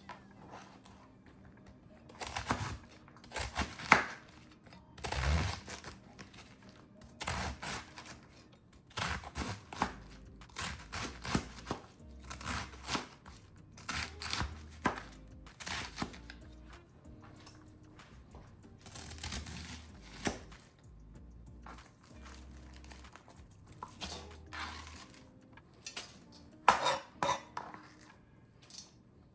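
A knife slicing cabbage into shreds: irregular runs of short sharp cuts with brief pauses between them.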